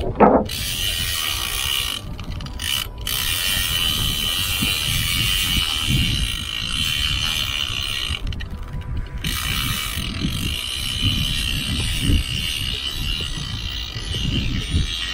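Spinning fishing reel ratcheting steadily as line is reeled in against a hooked fish, with low wind rumble on the microphone.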